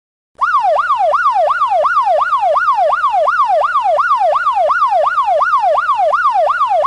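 Electronic siren in a fast yelp pattern, its pitch sweeping up and down about three times a second. It starts about half a second in.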